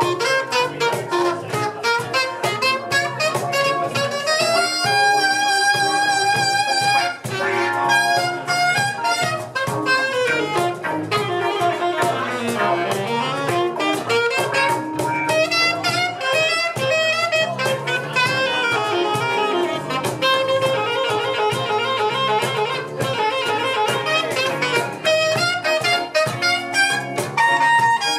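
Live band playing an instrumental jazz groove: electric bass and guitar over a steady beat, with a lead instrument playing a solo line that holds one long note about five seconds in.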